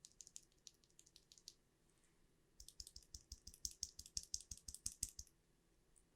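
Typing on an acrylic Alice-layout mechanical keyboard with lubed Gateron Black Ink linear switches and SA keycaps. A few lighter keystrokes come first, then after a short pause a faster, louder run of keystrokes with a low knock under each one.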